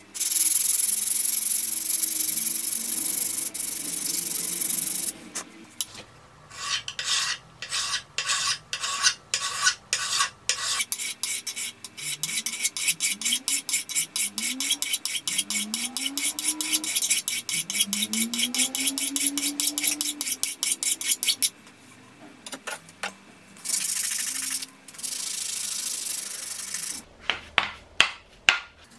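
Hand file scraping across the steel jaws of a small hand vise. It starts with about five seconds of continuous scraping, then a long run of quick short strokes, several a second, then two longer steady scrapes and a few separate strokes near the end.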